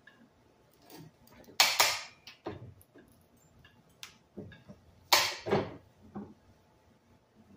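Arbor press driving a keyway broach through a steel sleeve: two loud metallic clanks, about 1.7 s and 5.2 s in, with smaller clicks and knocks between.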